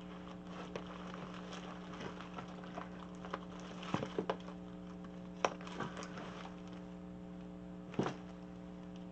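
Hand rummaging through a clear plastic storage box of lace and ribbon: scattered plastic clicks, knocks and rustles, the loudest about four, five and a half and eight seconds in, over a steady low hum.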